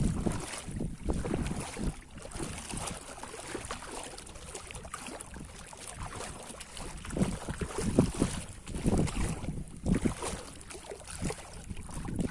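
Wind buffeting the microphone, with irregular stronger gusts.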